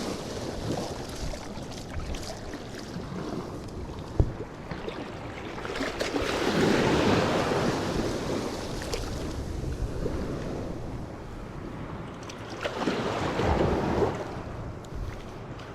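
Surf breaking on a beach, with wind on the microphone. Two waves swell up and wash in, the first about six seconds in and the second near the end, with a single sharp tap a few seconds in.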